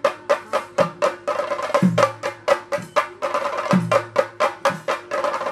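Theyyam ritual drumming: chenda drums beaten with sticks in a fast run of sharp strokes, about five a second, with a deeper stroke now and then that drops in pitch.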